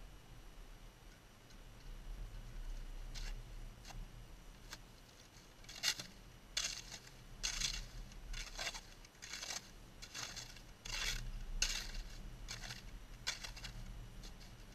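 Snow shovel scraping through snow on lake ice in a series of strokes, a few faint ones first, then about ten stronger scrapes roughly one a second, over a steady low hum.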